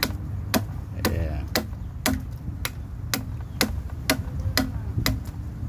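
Hand adze chopping into breadfruit wood, steady rhythmic strikes about two a second as chips are carved off the timber, over a low background rumble.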